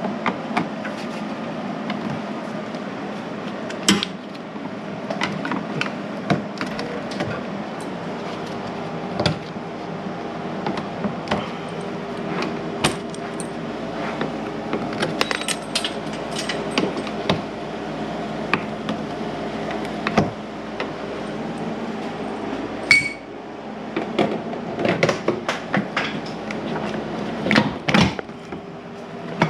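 Metal hand tools clinking and knocking on bolts and engine parts, with scattered sharp clicks over a steady background hum.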